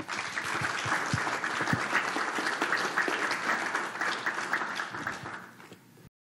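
Audience applauding with dense, sustained clapping that thins out over its last second and then cuts off abruptly.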